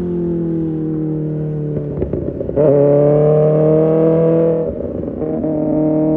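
Kawasaki Ninja ZX-6R's inline-four engine through an Arrow Pro Race exhaust, its note falling off the throttle for about two seconds with a few short crackles. It comes back on the throttle louder for about two seconds, dips briefly, then holds steady.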